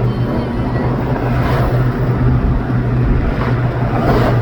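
Steady low drone of a car, engine and road noise heard from inside the cabin.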